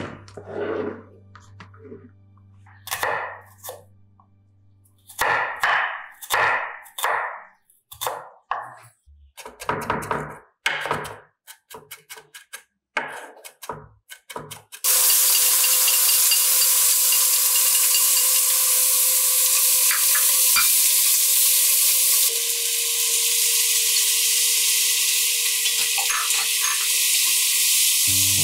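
A knife chopping shallots and garlic on a wooden cutting board in irregular strokes. About halfway through, a steady sizzle starts suddenly as oysters fry in a nonstick pan and are stirred with chopsticks.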